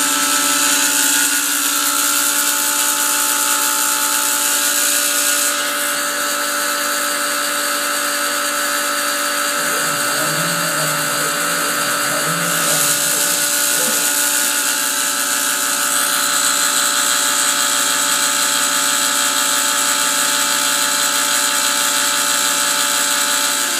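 Grizzly G0704 benchtop mill under CNC control, its belt-driven spindle running at about 3,700 RPM while a 1/16-inch end mill cuts holes in Delrin. It makes a steady whine with several held tones over a hiss. The belt drive is a little noisy from slight pulley wobble, the pulleys having been bored oversize.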